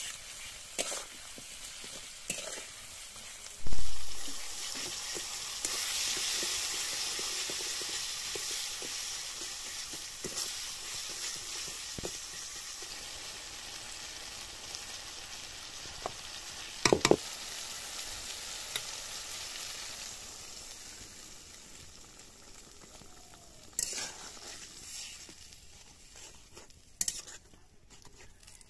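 Tomato and onion masala sizzling as it fries in a metal kadai, with a metal spatula stirring and scraping and knocking against the pan. There is a loud thump about four seconds in. The sizzle swells soon after and dies down over the second half.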